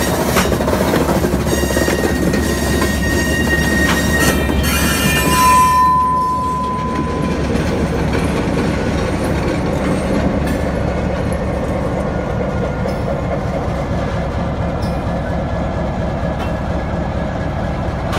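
Slow freight train of covered hopper cars rolling past, the steel wheels squealing in high steady tones for the first six seconds or so over a continuous rumble. The squeal then stops, and a steadier low rumble follows as the EMD SW1200 switcher locomotive comes alongside.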